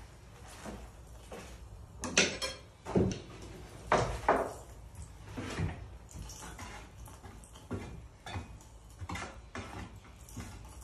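Objects being handled on a tabletop: a series of knocks and clinks, the loudest cluster between about two and four and a half seconds in, then lighter taps.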